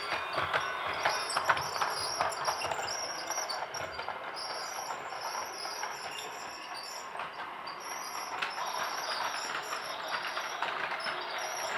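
Toy train running, a steady clatter of many small clicks.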